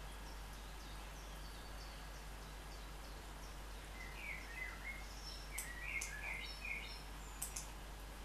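A small bird chirping: faint high chirps throughout, then a louder run of quick chirps from about four to seven seconds in, over a steady low hum.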